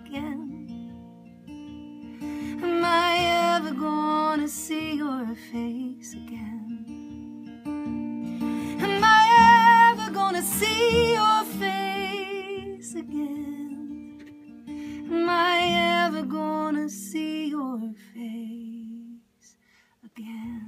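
A female singer holds long notes with vibrato in three phrases over strummed acoustic guitar. The guitar drops out briefly near the end, then comes back in.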